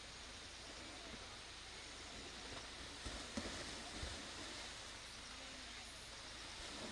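Tiger plunging into a pool after a floating ball: a few water splashes about three to four seconds in, faint and heard from a distance, over a steady outdoor background.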